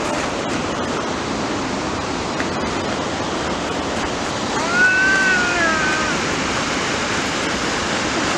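Steady roar of a large waterfall. About five seconds in, a short high-pitched call rises and falls over it for a second or so.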